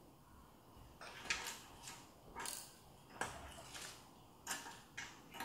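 Faint, irregular metallic clicks of pliers gripping and bending a cotter pin in the rear axle nut of a 1972 Honda CB350, about half a dozen ticks.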